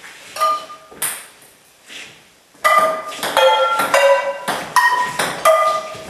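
A ping-pong ball hit back and forth with metal frying pans: each hit gives a sharp strike with a short pitched ringing clang, mixed with the ball's clicks off the table. A few scattered hits come first, then about two and a half seconds in a fast rally of two to three hits a second.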